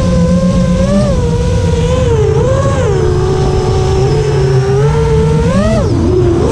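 Brushless motors of a 5-inch FPV quadcopter (iFlight Xing 2806.5 1300 kV) whining in flight, their pitch rising and falling with throttle: it drops in the middle, then climbs quickly and dips sharply near the end. The whine is clean, without the raspy resonance that D-min had caused before it was switched off.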